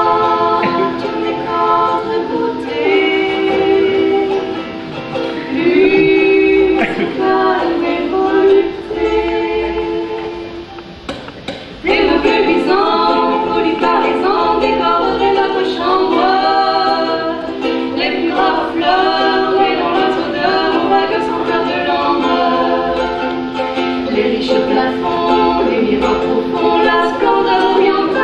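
Two women singing together to a ukulele. The song drops to a quieter passage and comes back in at full strength about twelve seconds in.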